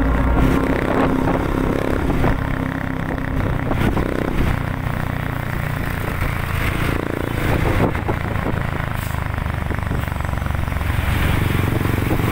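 A motorcycle engine running steadily while riding through city traffic, with the rumble of surrounding traffic and road noise.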